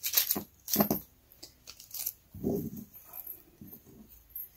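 A small packet of brass fishing swivels being opened, with crinkling and tearing noises in the first second. About halfway through comes a short pitched, voice-like sound, and a fainter one follows near the end.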